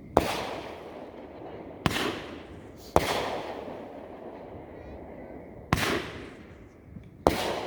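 Aerial firework shells bursting: five sharp bangs at uneven intervals, each followed by a rolling echo that fades away.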